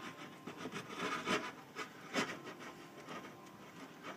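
Mixing spoon scraping and stirring thick brownie batter in a glass bowl: irregular rubbing scrapes, with a few sharper knocks against the bowl.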